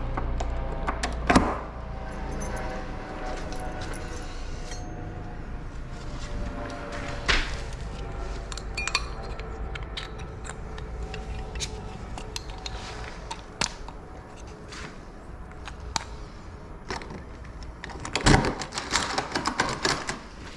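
Metal clicks, knocks and rattles of door-lock hardware and keys being handled and fitted, with a sharp knock about a second in and a quick run of rattling clicks near the end.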